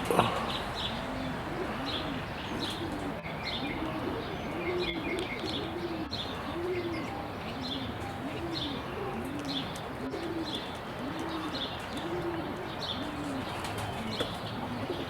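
Domestic pigeons cooing: a low coo that rises and falls in pitch, repeated over and over about every half second to second, with faint high chirps alongside. A brief knock sounds right at the start.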